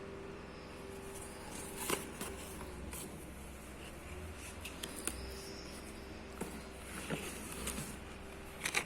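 Soft rustling and scattered light clicks of a cardboard box and its packed contents being handled and unpacked by hand.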